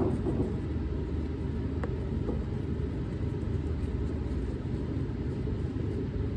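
Steady low background rumble, with two faint clicks about two seconds in.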